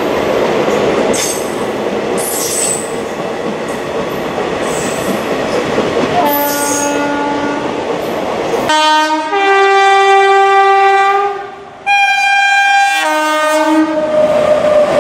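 Railway coaches rolling past close by, the wheels clicking over rail joints about once a second. About nine seconds in, an electric locomotive's horn gives a long multi-tone blast, breaks off briefly just before twelve seconds, then sounds again.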